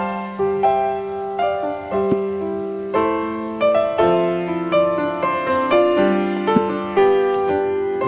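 Background piano music: a melody of single notes and chords, each struck and left to fade, about one a second.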